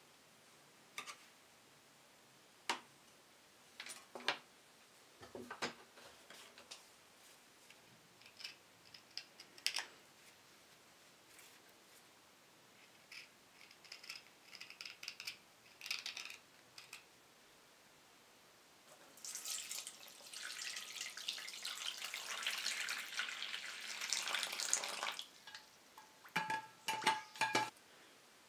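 Hand leatherworking on a leather chisel sheath with a knife and small hand tools: scattered light clicks and cuts, then about six seconds of steady scraping, the loudest part, then a quick run of clicks near the end.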